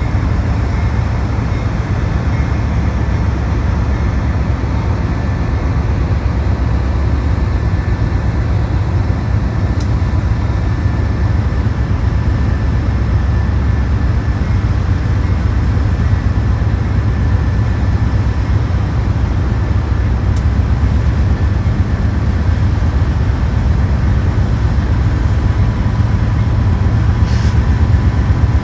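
A vehicle in motion: a steady heavy low rumble with several faint steady whining tones over it and a few light clicks.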